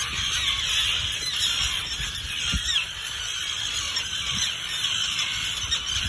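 A colony of terns giving a continuous chorus of harsh, overlapping alarm calls as many adults circle overhead: the nesting birds are agitated by a person among their chicks.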